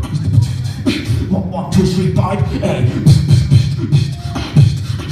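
Live beatboxing through a microphone and PA: deep vocal kick drums in a driving beat, with sharp snare and hi-hat clicks and a few short pitched hums.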